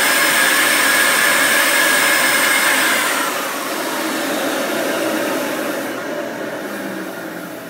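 Homemade direct-drive electric turbo (an electric motor spinning a turbo compressor wheel) running at full speed with a high whine over a loud rush of air, making about 0.3 bar of boost. About three seconds in the power comes off and it spools down, the whine dropping away and the air rush slowly fading.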